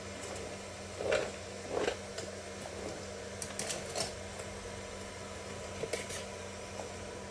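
Handling noises from working plastic zip ties through a motorcycle boot: two short rustles about a second in, then scattered small clicks and ticks, over a steady background hum.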